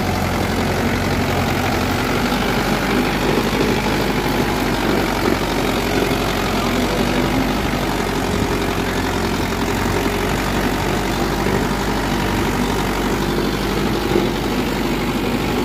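Mahindra Yuvo 575 DI tractor's four-cylinder diesel engine running steadily under load while pulling a tine cultivator through dry soil.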